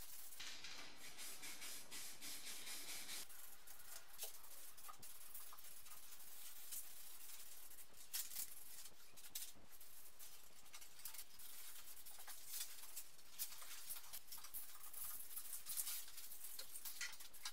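Aerosol spray can hissing in repeated short bursts as it sprays a car's front panel, with a long burst near the start and shorter ones after.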